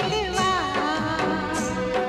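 Background music: a song with a singer's voice over a steady instrumental backing.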